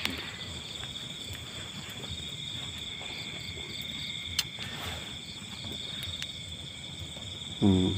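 Night insects, crickets among them, chirring in a steady high trill, with one sharp click about four and a half seconds in.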